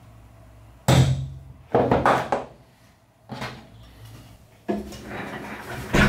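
A wooden board handled on a workbench: sharp wooden knocks about one and two seconds in and a lighter one a little later, then a longer stretch of rubbing and clatter as the board is moved.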